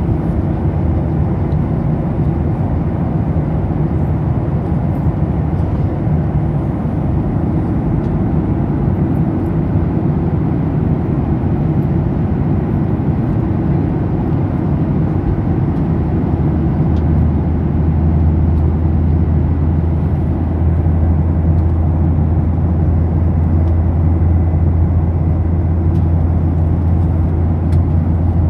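Steady airliner cabin noise in flight: the low drone of the engines and rushing air. A deeper hum grows louder about two-thirds of the way through.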